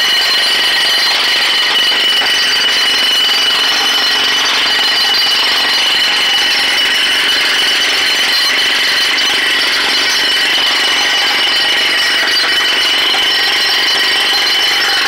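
Pneumatic jackhammer hammering steadily into a concrete sidewalk, a loud, rapid, unbroken chatter.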